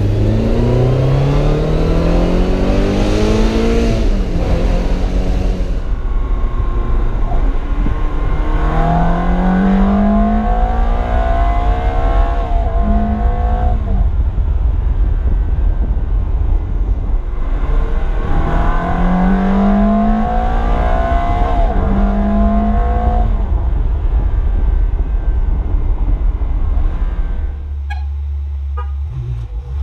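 Ferrari V8 accelerating hard, its pitch climbing in steps as it shifts up through the gears, in three separate pulls over a steady low road rumble.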